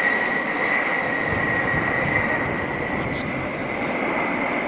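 Jet aircraft engines running: a steady rushing rumble with a high, unchanging whine through it.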